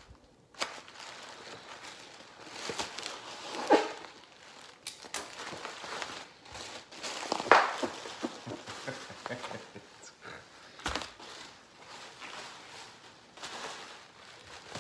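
Plastic bubble wrap crinkling and rustling as it is unwrapped and handled, in irregular bursts, loudest about four seconds in and again about seven and a half seconds in.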